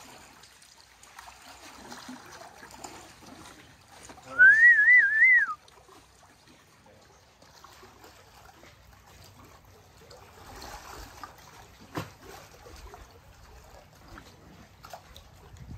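A short, loud whistle with a wavering pitch, rising and falling several times over about a second, about four seconds in. Faint water lapping runs underneath, with a single sharp click near twelve seconds in.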